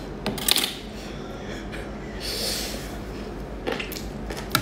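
Close-up mukbang eating sounds: wet mouth and finger clicks on a slippery, sauce-coated piece of seafood. A short hissing suck comes about two seconds in, and more smacking clicks follow as she bites into it.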